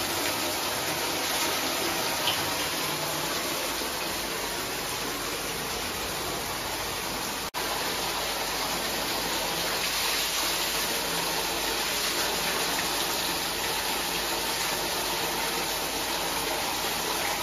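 A thick stream of water pouring steadily from a spout in a brick wall and splashing onto the floor below, a constant gushing that breaks off for a moment about seven and a half seconds in.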